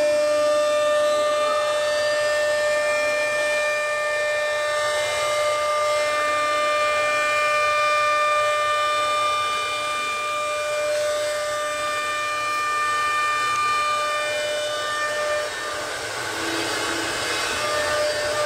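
CNC router spindle running at a steady high whine with several overtones as its bit carves a door panel. About fifteen seconds in, the whine fades and a rougher, hissing cutting noise takes over, before the whine comes back near the end.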